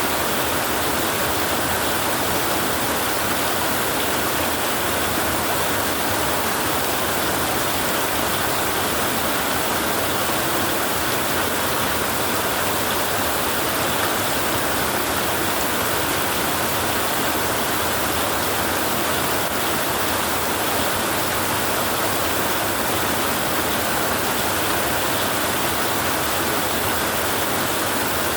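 Heavy rain on a tin roof, a steady dense rush of noise with no break or change.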